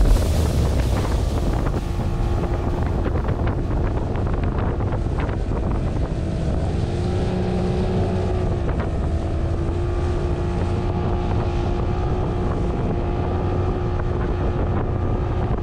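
Motorboat engine running steadily under way, a low rumble with a steady drone whose pitch shifts slightly about halfway through, and wind buffeting the microphone.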